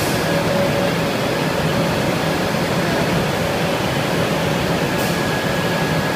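Steady, loud running noise of factory machinery filling a large hall, with a low hum, and a short hiss at the start and again about five seconds in.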